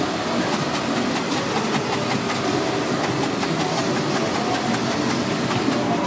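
Chef's knife rapidly chopping fresh dill on a plastic cutting board: quick, even knife strikes, about four to five a second, over a steady background hum.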